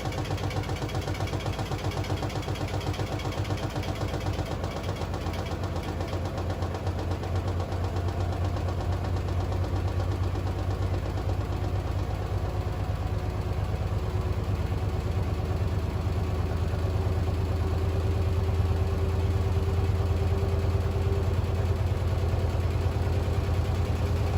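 Beko AquaTech washing machine running with a steady low hum and a fast, even rattle, getting gradually louder, with a faint whine creeping up in pitch partway through. These are the unwanted noises the owner complains of in a machine only a week old.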